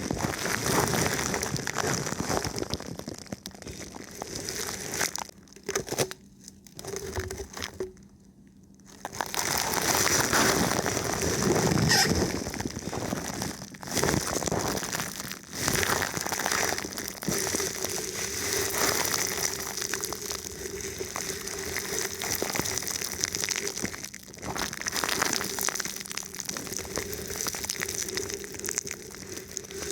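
Thin plastic film wrapped over a microphone being rubbed and touched, giving a close, continuous crinkling and crackling that pauses briefly about eight seconds in.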